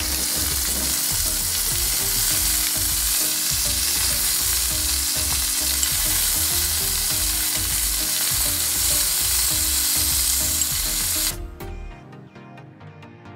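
Razor clams sizzling in hot oil in a cast iron skillet: a loud, steady frying hiss that cuts off suddenly about eleven seconds in, leaving quieter background music.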